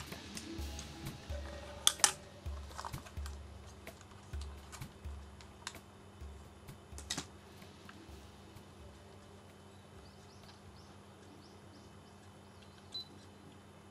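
Irregular clicking and tapping of typing on a computer keyboard, densest in the first half with the loudest clicks about two seconds in, thinning out after about eight seconds.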